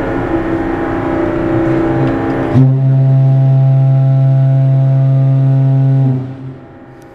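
The ship's horn of the BC Ferries Spirit of Vancouver Island sounding. First comes a blast mixed with rushing wind-like noise. About two and a half seconds in, a long, steady, deep blast takes over, holds for about three and a half seconds, then stops and fades away.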